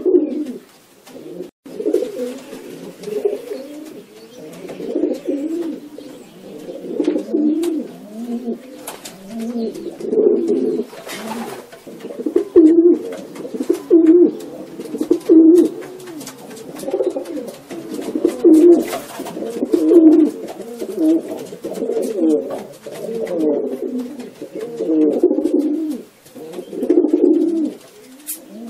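Many domestic pigeons cooing together in a loft, their low, throbbing coos overlapping into a continuous chorus that swells and fades every second or two.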